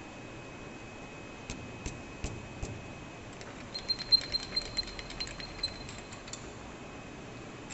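Light sharp clicks and ticks over a steady hiss. About four seconds in comes a quick run of ringing ticks, about six a second, which ends about two seconds later.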